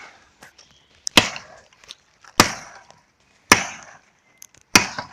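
Four chopping strikes into the wood of a small tree, about one every second and a bit, each a sharp crack with a short splintery tail.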